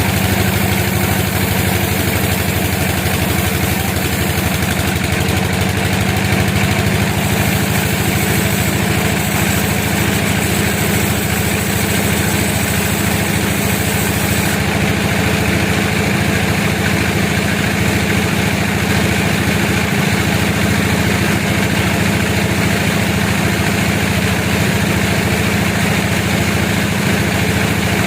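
Sawmill machinery running steadily, a continuous engine-like drone at an even level.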